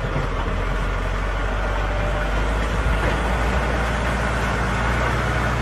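Side-dump trailer tipping a load of broken rock: a steady rushing rumble of rock pouring and sliding out of the bucket, with the truck's engine running underneath as a low steady hum.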